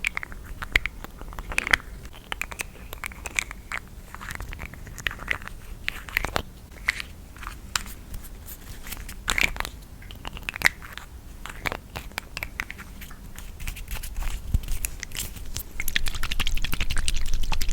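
Lids and bottle caps handled close to the microphone: irregular clicks, taps and crackly twisting, getting busier and louder near the end.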